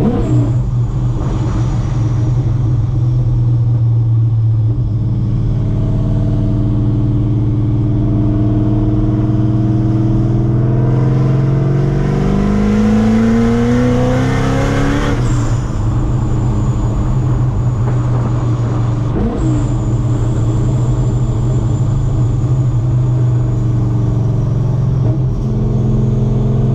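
Supercharged LS7 V8 of a C6 Corvette Z06 driving: steady running, then a hard acceleration with the engine pitch rising for several seconds and hiss building, cut off sharply about halfway through, then steady cruising with a thin high whine.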